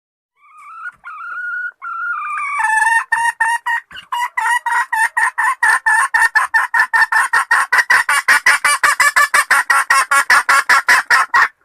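Domestic hen calling: a few drawn-out, slightly rising notes, then a long, fast, regular run of short clucks, about five a second, growing louder before stopping abruptly.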